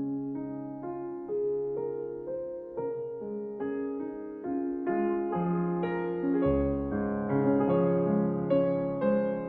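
Gentle background piano music with notes struck at an even pace, filling out with deeper bass notes about two thirds of the way in.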